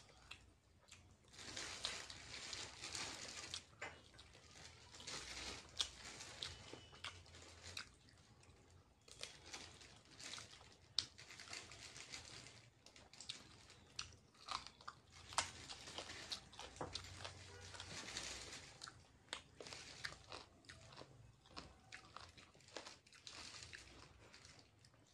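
A person eating close to the microphone, chewing mouthfuls of noodles and biting into fried chicken lollipops, with frequent sharp mouth clicks.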